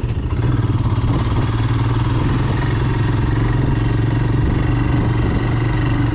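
Motorcycle engine running steadily at an even pitch while riding.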